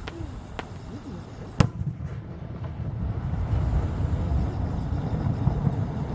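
Aerial fireworks: one sharp shell burst about a second and a half in, after a fainter pop, then a denser low rumble with crackling builds up.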